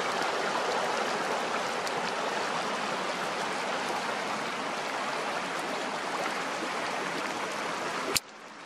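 Blackstone River flowing past, a steady rush of water over its rippled current. A sharp click near the end cuts it off, and the level drops suddenly.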